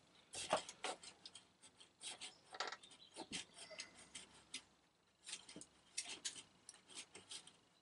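Faint, scattered small clicks and rustles of wires and plastic parts being handled as a CRT monitor's main circuit board and its cables are worked loose from the chassis.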